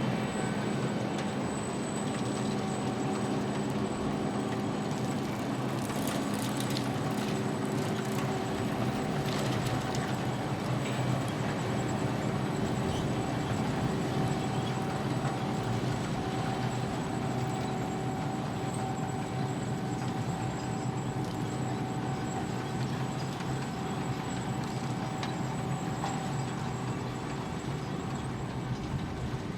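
Tractor engine and trailed DeWulf 3060 potato harvester machinery running steadily: a continuous mechanical drone with a held hum and a faint high whine.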